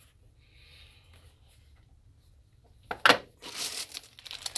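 Quiet room tone, then about three seconds in a single sharp knock, likely a box being set down, followed by the crinkling rustle of a plastic zip-top bag of marbles being picked up and handled.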